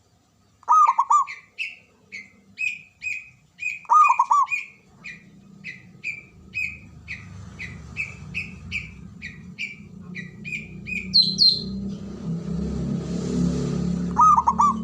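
Zebra dove (perkutut) cooing in three short bursts of quick, rolling notes: near the start, about four seconds in, and near the end. Between them another bird gives a steady run of short, higher chirps about three a second, while a low rumble builds in the second half.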